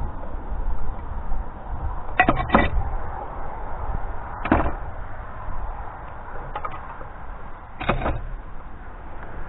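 Broken chunks of chimney brick clunking as they are dropped into a bucket and set down: a quick pair of sharp knocks, then single knocks a couple of seconds apart, over a low rumble.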